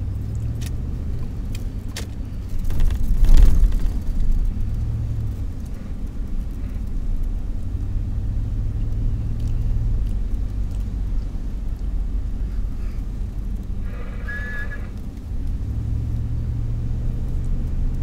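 Car engine and road noise heard from inside the cabin while driving: a steady low rumble, with a louder swell about three seconds in.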